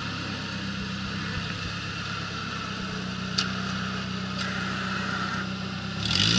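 Engine of a Suzuki Sidekick-based off-road buggy running steadily at low revs while it crawls across a steep bank, with a single sharp click about halfway; near the end the revs rise.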